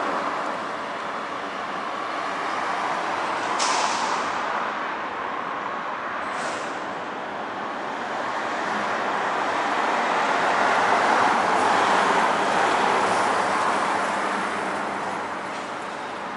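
Road traffic noise, with vehicles passing and the sound swelling to its loudest about eleven seconds in. Two short hisses come at about four seconds and six and a half seconds in.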